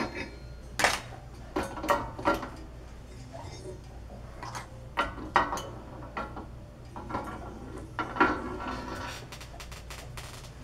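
Metal bicycle parts and hand tools clinking and knocking as a bottom bracket is taken apart: several sharp metallic clanks scattered through, over a steady low hum.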